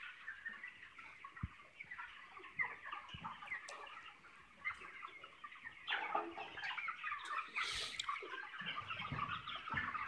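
A large flock of 27-day-old broiler chickens peeping and clucking continuously, many small overlapping calls, with a short rustle about eight seconds in.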